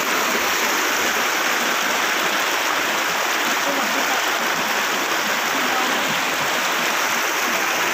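Water rushing steadily out through the opened gate of a dam, at its first release.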